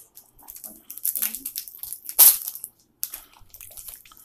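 Foil wrapper of a Pokémon card booster pack crinkling and tearing as it is worked open with difficulty, in irregular crackles with one loud crackle about two seconds in.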